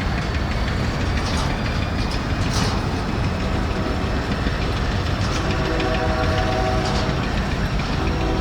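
Freight train rolling past: a steady heavy rumble with a few sharp wheel clicks on the rails. A pitched tone sounds for about a second and a half past the middle.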